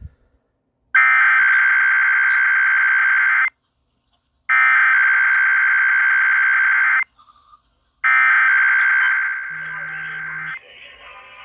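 Emergency Alert System SAME header, broadcast over AM radio at the start of a Required Weekly Test: three bursts of digital data tones, each about two and a half seconds long, about a second apart. The third burst drops in level partway through.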